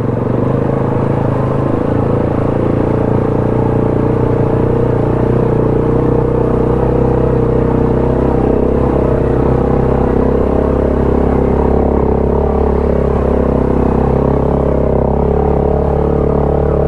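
ATV engine running steadily at close range, with an even, unchanging pitch; it picks up slightly right at the start.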